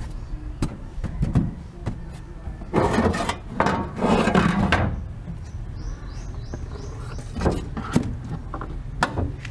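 Handling noises at a wooden box in a pickup truck bed: its bent-wire metal handle clicks and knocks, with scraping about three and four seconds in. A quick run of high chirps follows midway, then a few more sharp knocks near the end.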